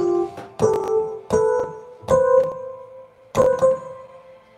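Digital piano being played slowly: about five chords struck one after another, each left to ring and fade, the last held and dying away near the end.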